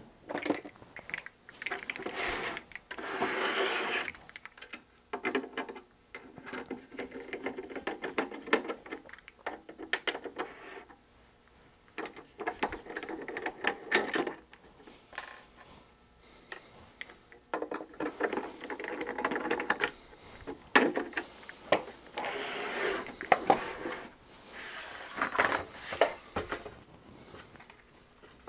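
Irregular clattering, knocking and rustling of objects being handled and moved around on a cluttered workbench, with scattered sharp clicks.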